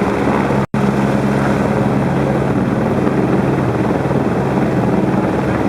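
Helicopter running steadily: a loud, continuous rotor and engine drone with a low hum. The sound cuts out for an instant a little under a second in, then resumes unchanged.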